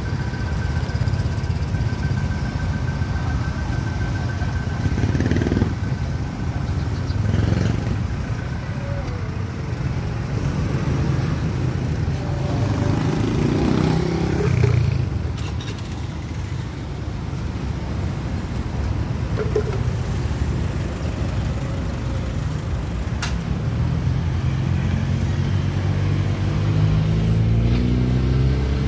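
Street traffic: motorbike and car engines running and passing in a steady low rumble, with one engine rising in pitch as it accelerates near the end.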